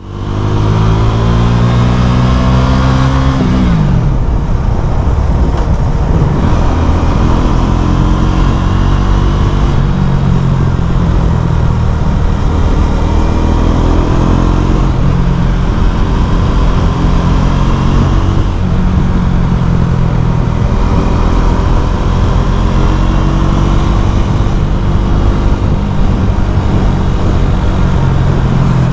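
Motorcycle engine running loud through a LeoVince LV One Evo carbon exhaust with the dB killer removed. The revs climb and drop sharply about three seconds in, then rise and fall several more times.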